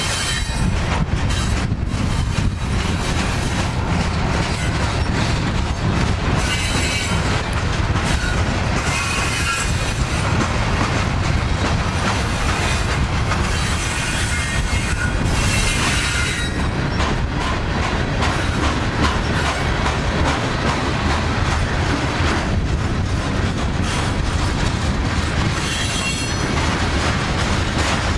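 Coal train hopper cars rolling past: a steady rumble and clatter of steel wheels on rail, with a brief high-pitched wheel squeal several times.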